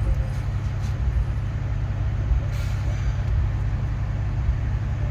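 Steady low rumble of a vehicle engine running nearby, with a brief hiss about two and a half seconds in.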